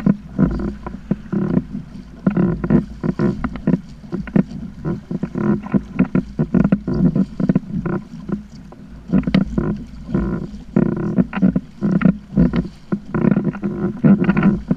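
Choppy water slapping against a plastic sit-on-top kayak hull in a quick, irregular series of knocks, with a low wind rumble underneath.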